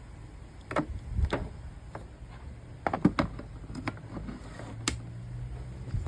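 Sharp clicks and knocks from handling a Makita 13 mm electric drill, a few single ones and a quick cluster of three in the middle. A low steady hum comes in about two-thirds of the way through.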